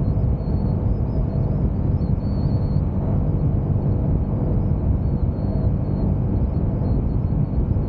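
Honda CBR motorcycle ridden at a steady pace: wind rushing over the helmet or camera microphone mixed with the engine's steady drone, with no clear revving or gear changes.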